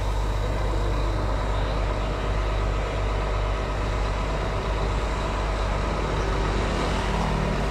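Coach bus engines idling: a steady low rumble that holds even throughout.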